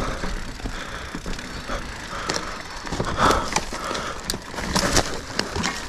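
Mountain bike riding over a rough dirt and rock trail: a steady rush of tyre noise with many irregular clicks and knocks from the bike rattling over the ground.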